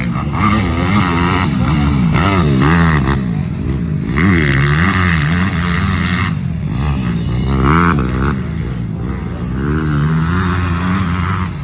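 Pit bike engines revving up and down over and over as the bikes race over the jumps of a dirt motocross track.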